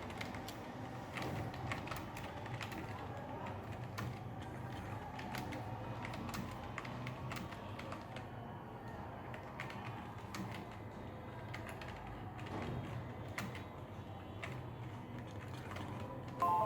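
Computer keyboard being typed on at a steady working pace, with irregular key clicks during a typing speed test.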